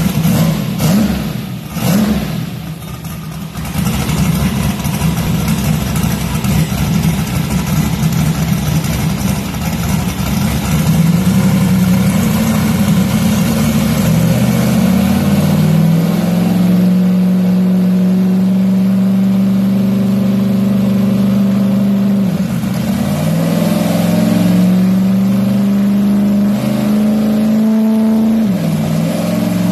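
Turbocharged 408 cubic-inch V8 in a Fox-body Ford Mustang making a pull on a Dynojet chassis dyno, run with no boost and no timing advance. After a few seconds of uneven revving, the engine note climbs steadily for several seconds, then holds high, dipping briefly twice: about two-thirds of the way through and again near the end.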